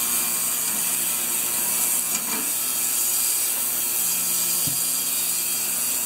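Ultrasonic parts cleaner running a cleaning cycle: a steady buzzing hiss from the tank.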